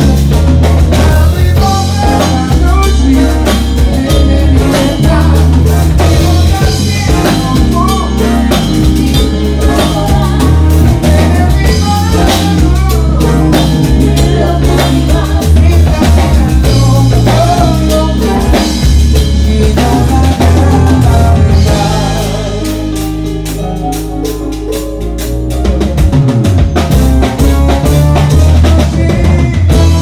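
Live band playing: a drum kit and bass drive a steady beat under keyboards and guitar, with singers over the top. The drums drop out for a few seconds with a held bass note about two-thirds of the way through, then the full band comes back in.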